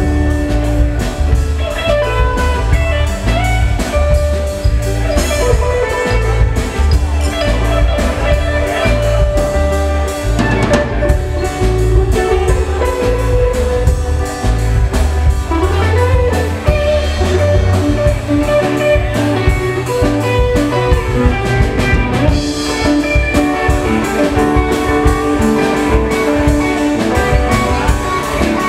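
Live band playing: electric guitar, electric bass, drum kit and keyboard, with a steady drum beat and a heavy bass line.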